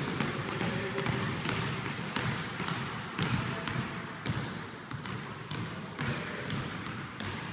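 A run of irregular knocks and thuds, several a second, with a few brief high squeaks.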